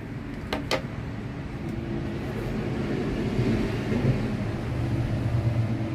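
Low engine rumble of a passing motor vehicle, slowly growing louder, with two short clicks about half a second in.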